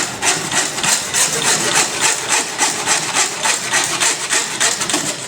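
Hacksaw blade of a Zippo 4-in-1 Woodsman sawing through a deer quarter in rapid, even back-and-forth strokes.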